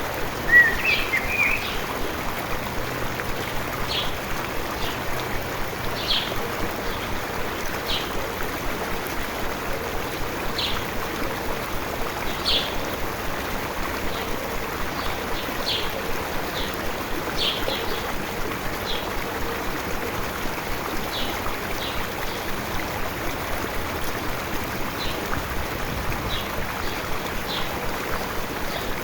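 Small water stream running steadily, with short high chirps every second or two and a brief bird call, the loudest sound, near the start.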